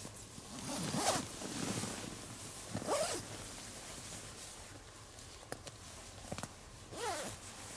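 Grüezibag sleeping bag's zipper being pulled in a few short strokes, with the bag's fabric rustling as the body inside it shifts.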